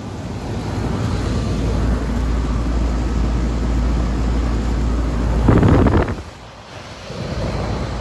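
Steady low rumble of an outdoor central-air condenser, a 5-ton Concord 4AC13, running, mixed with wind buffeting the phone's microphone. About five and a half seconds in comes a brief loud rustle of handling noise, and the sound drops for a moment before the rumble returns.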